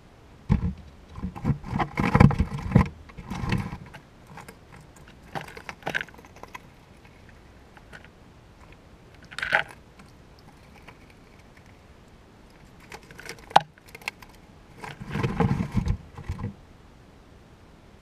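A squirrel rummaging and handling peanuts in the shell right by the microphone: irregular bursts of rattling, scratching and clicking of shells and claws on the wooden floor, with the busiest stretches near the start and near the end.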